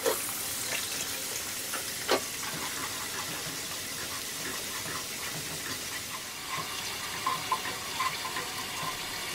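Beaten eggs sizzling in hot oil in a nonstick frying pan as they scramble, with a slotted spatula stirring and scraping them. A couple of sharper knocks of the spatula on the pan come at the start and about two seconds in, with small ticks later.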